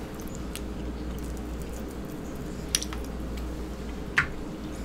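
Soft wet squishing and crackling of seafood-boil shellfish in sauce being picked apart by hand and eaten, with two sharper clicks, one near the middle and one near the end, over a low steady hum.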